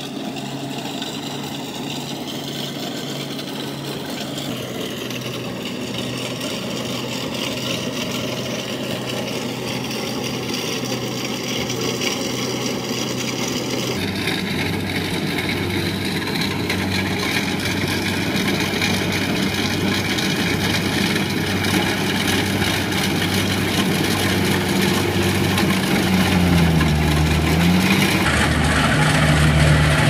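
Kubota tracked combine harvester's diesel engine running steadily as it cuts rice, growing louder as the machine comes closer. Near the end the engine note briefly sags and then picks back up.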